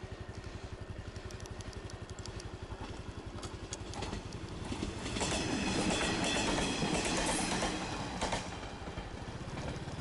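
A two-car diesel railcar train passes over a level crossing close by, its wheels clacking over the rail joints. It swells in from about four seconds in, is loudest in the middle and fades by near the end. Under it, the small single-cylinder four-stroke engine of a Honda Super Cub idles steadily.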